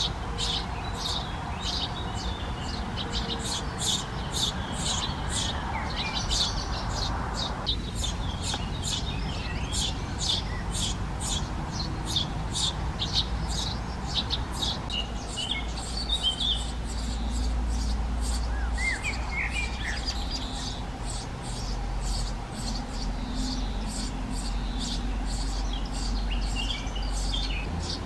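Eurasian tree sparrow nestlings giving begging calls: a steady run of short, high chirps, about two or three a second.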